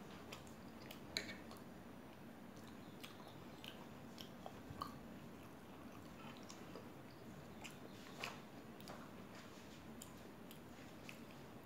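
Close-miked chewing of a fried pakoda: soft, quiet mouth sounds with scattered small wet clicks, a few sharper.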